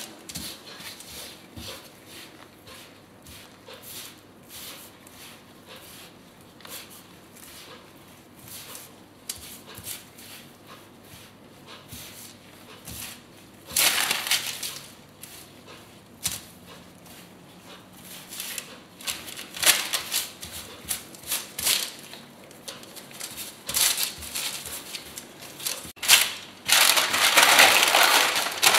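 Gloved hands squeezing and mixing crumbly puff-pastry dough of flour, chopped cold butter and egg on a sheet of paper, with soft crunching and rustling that grows busier as the work goes on. Near the end the paper is crinkled loudly as it is folded over and pressed onto the dough.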